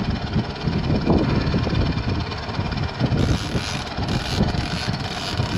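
Wind buffeting the microphone aboard a moving sailboat, a dense low rumble, with gusts of hiss from about three seconds in.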